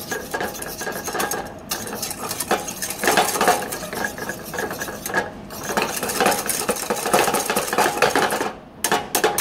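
A metal wire whisk stirring thick mashed potato in a small stainless steel saucepan, with rapid continuous clinking and scraping against the pan. The whisking pauses briefly near the end.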